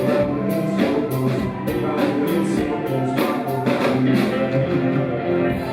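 Rock band playing live, with drum kit, bass and guitar sustaining notes; the regular drum and cymbal hits stop about five seconds in.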